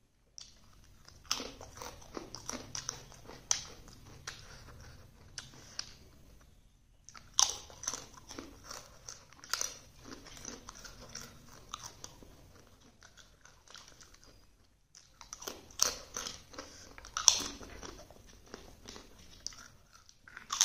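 A person biting into and chewing crunchy slices of food: three runs of crackling bites and chews, starting about a second in, around seven seconds in and around fifteen seconds in, with short pauses between.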